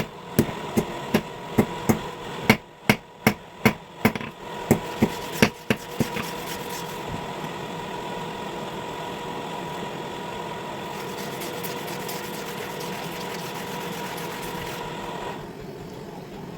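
Hammer blows on steel at the anvil, about fifteen sharp strikes in quick, even succession over the first six seconds, typical of forging a blade. After that comes a steady machine hum with a steady whine, which stops shortly before the end.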